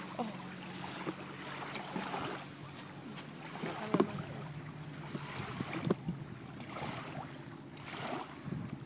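Small waves lapping and washing onto a sandy lake shore, with a steady low hum underneath and a few soft knocks.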